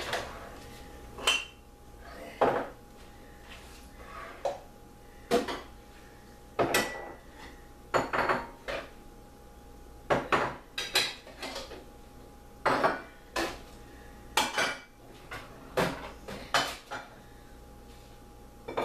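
Dishes and cutlery being handled at a kitchen counter: irregular clinks, clatters and knocks, some ringing briefly, spaced about a second apart, over a faint steady hum.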